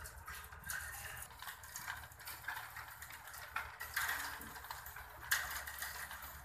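Scattered light metallic clicks and ticks of fence wires being handled and tied on a wire-mesh fence panel, with one sharper click about five seconds in.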